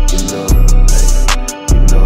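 Instrumental stretch of a hip hop track: deep, sustained bass notes that drop out briefly and restart twice, under quick hi-hat ticks, with no vocals.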